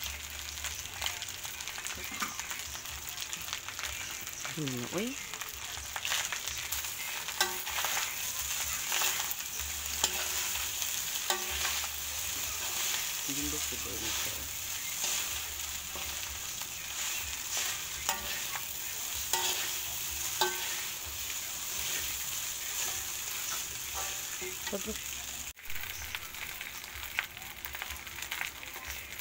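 Garlic fried rice (sinangag) sizzling in a wok as it is stir-fried, with a steady hiss and repeated scrapes and knocks of a wooden spatula and metal spoon against the pan.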